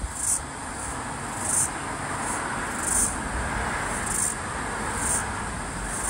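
Floury baker cicada calling: short high-pitched buzzes, about five of them, coming roughly once a second at uneven spacing, over a steady background hiss and rumble.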